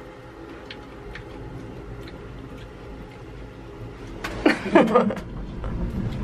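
Steady low rumble inside a moving aerial gondola cabin, with a few faint clicks. About four and a half seconds in, a person lets out a short vocal sound that falls in pitch, and the rumble grows a little louder near the end.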